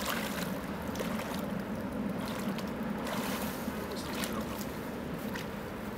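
Steady low rumble and hiss of open-air ambience on a river, with light water sloshing around the legs of anglers wading in the shallows while a fish is played.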